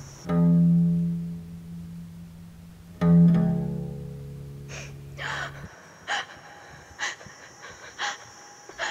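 Horror film score: two deep, swelling musical stings about three seconds apart over a low drone, which cuts off about halfway through. Sharp short hits follow about once a second.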